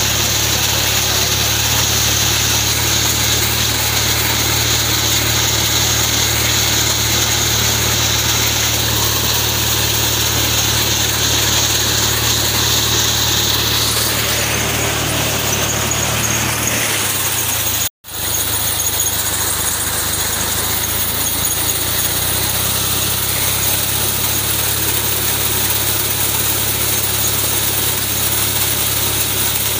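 Fiat 480 tractor's diesel engine running steadily while it drives a reaper through standing maize fodder, with a high steady whine over the engine. The sound cuts out completely for a moment a little past the middle, then resumes.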